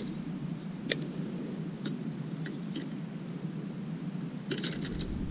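Clicks and ticks from a baitcasting rod and reel being handled: one sharp click about a second in, a few faint ticks, then a quick cluster of ticks near the end, over a steady low rumble.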